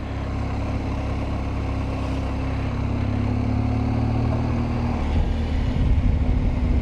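Motorcycle engine running at low speed on a gravel road, a steady hum that turns rougher and a little louder about five seconds in.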